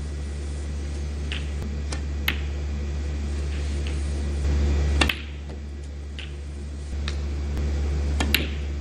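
Sharp clicks of snooker balls being struck and hitting one another, a few scattered over the seconds, the loudest about five seconds in, over a steady low hum.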